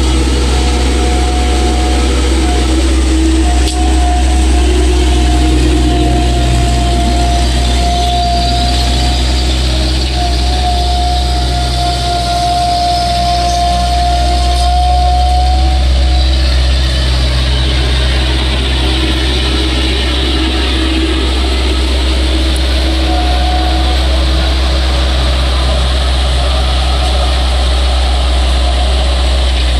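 Bobcat 763 skid-steer loader's diesel engine running steadily as the machine is driven about, with a steady whine over it through the first half.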